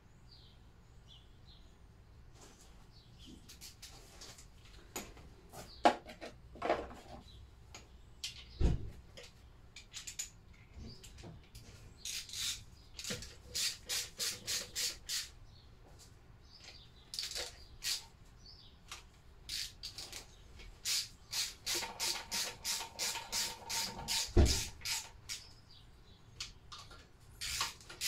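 Hand tools at work on a Lister D stationary engine: scattered knocks, then runs of quick, evenly spaced clicks, about four a second around the middle and faster near the end, with two heavy thuds. Faint birdsong at the start.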